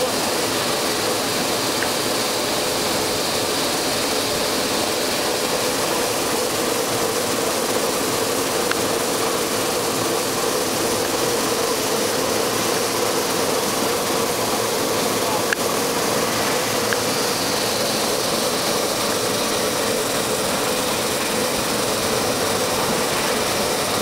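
Brush-roller potato peeling and washing machine running steadily: an even motor hum over the hiss of water spray and the rollers churning the potatoes, with a couple of faint knocks.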